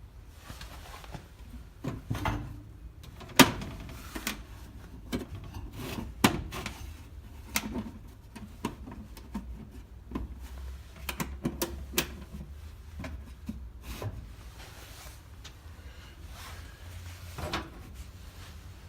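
A string of irregular knocks, clicks and clunks, like things being handled, opened and set down, with the sharpest knock about three and a half seconds in.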